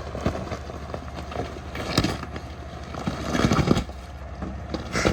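Full-size pickup truck crawling slowly over rocks: a steady low engine rumble, with tyres crunching and scraping on rock in a few irregular spells.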